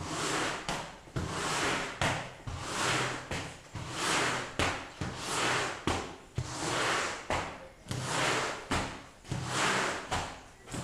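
Rubber floor squeegee pushed across a wet concrete floor, sweeping water in repeated strokes: a swishing scrape about once every second and a half, each stroke starting with a short knock as the blade is set down.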